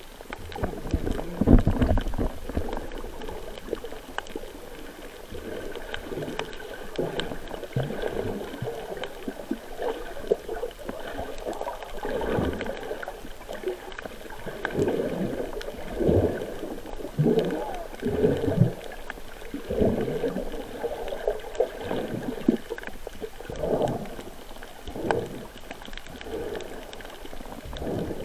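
Underwater sound of water sloshing and gurgling around a camera moving through shallow water, with irregular swishes every second or so.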